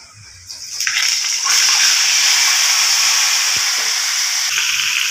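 Hot oil in a wok sizzling as a whole marinated chicken goes into it to fry: a loud, steady hiss that starts about half a second in and grows louder at about a second and a half.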